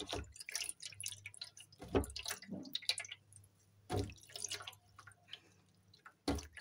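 Hands splashing and rubbing in shallow water in a plate, rinsing off face-wash lather, with dripping and trickling between sharper splashes about two, four and six seconds in.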